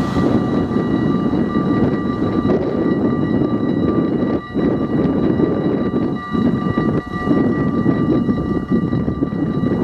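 Dutch level-crossing warning bells ringing steadily as the barrier arms lower, over a loud, steady rumbling noise.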